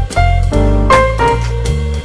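Background music: an upbeat jazzy tune with piano over a moving bass line and regular drum hits.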